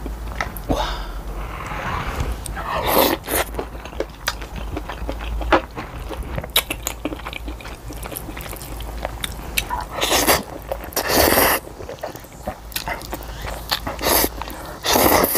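Close-miked eating of glass noodles and rice: many small wet chewing clicks and smacks, with loud slurps of the noodles about three seconds in, around ten to eleven seconds in, and again at the very end.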